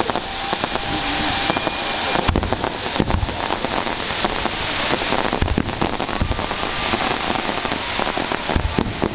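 Fireworks show: a dense, continuous crackling like heavy rain, broken by several low booms.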